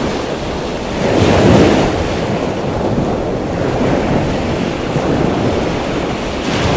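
Surf washing onto a sandy beach, with wind buffeting the microphone; the noise swells about a second in and again near the end.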